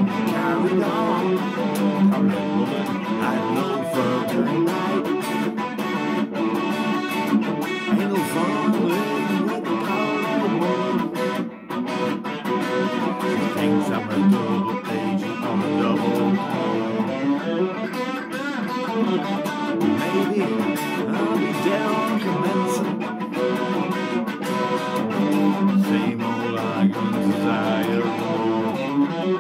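Solid-body electric guitar strummed in a steady rhythm, chords ringing on with a brief break about halfway through.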